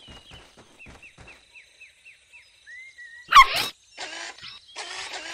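Cartoon puppy giving one loud, short bark about three and a half seconds in, over a run of quick falling chirps. Rough, rasping pulses follow near the end.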